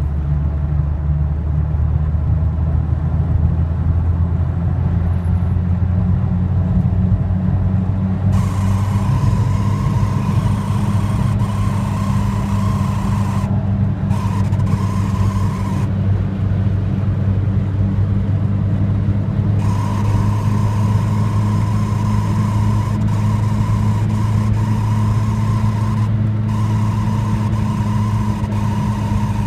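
Volkswagen Golf G60 at speed above 100 km/h, heard from inside the cabin: a steady low engine and road drone, and from about eight seconds in a strange high buzzing whine from the dashboard that keeps cutting out and coming back.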